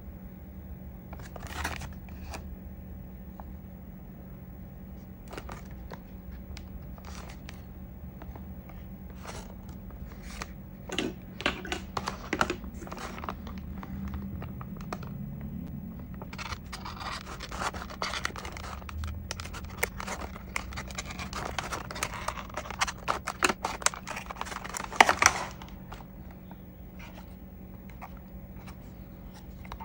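Clear plastic blister packaging being handled and cut open with a small hobby knife: scattered plastic crinkles and clicks at first, then a long stretch of dense scratching and scraping of the plastic that stops suddenly near the end. A faint steady hum runs underneath.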